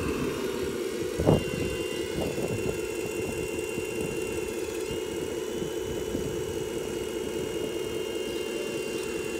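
Radio-controlled model vehicle's electric motor and gearbox whining steadily, with a thin high tone above that shifts slightly in pitch twice. A single knock about a second in.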